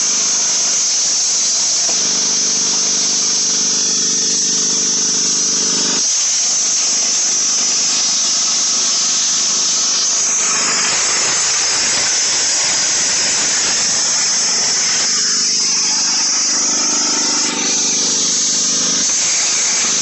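CNC plasma cutter cutting steel plate: a loud, steady hiss of the plasma arc and air. A hum of several tones joins it from about two to six seconds in, and again near the end.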